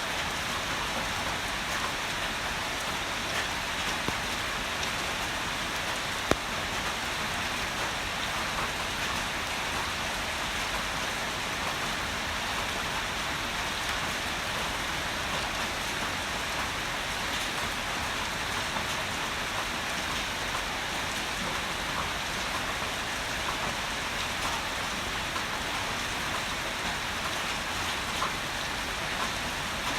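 Heavy rain falling steadily, with scattered drops ticking. About six seconds in there is one sharp tap.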